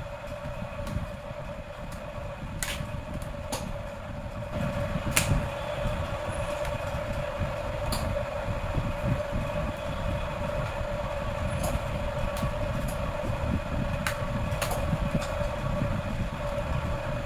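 Plastic snap clips of a laptop's bottom cover clicking loose one by one as it is pried with a plastic pry tool, about seven sharp clicks spread out over a steady low rumble and hum.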